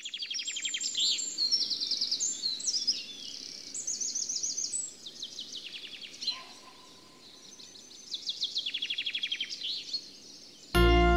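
Songbirds singing: rapid trills and repeated-note phrases, several overlapping. Music cuts in suddenly near the end.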